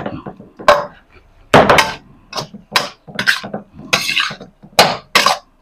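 Metal spatula scraping and knocking against a steel wok as minced duck larb is stirred to mix in the seasoning. There are about eight or nine irregular strokes, some short scrapes and some sharp clinks.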